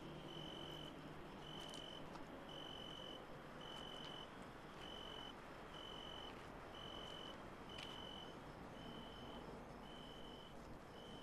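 A cricket chirping in evenly spaced, high trills, each about half a second long and about one a second, over a faint hiss, with a few faint clicks.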